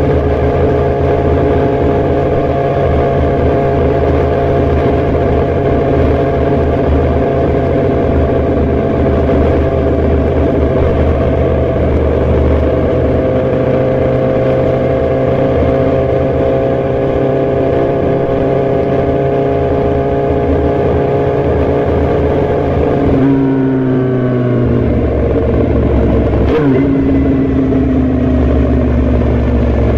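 Suzuki GSX-R1000 sport bike's inline-four engine running under way at steady, slowly climbing revs. A little after three quarters of the way through, the revs fall away, and a brief break follows a few seconds later before the engine pulls steadily again.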